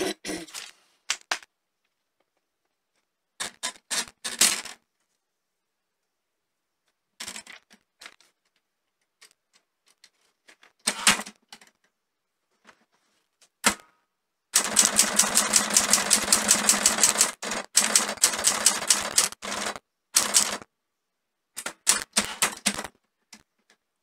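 Olympia SG1 manual typewriter: a few separate clunks and clicks while paper is fed in and the carriage is set, then, from a little past halfway, rapid typing, type bars striking in fast runs with short pauses.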